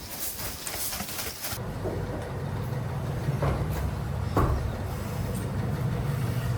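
A machine running with a steady low hum that starts abruptly about a second and a half in, with a few short knocks over it.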